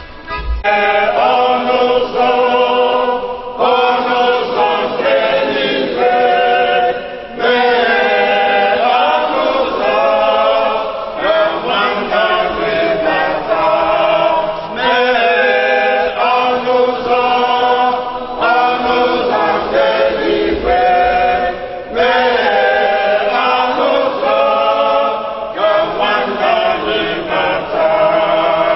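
Several men's and women's voices singing a hymn together without instruments, in phrases a few seconds long with brief pauses for breath between them.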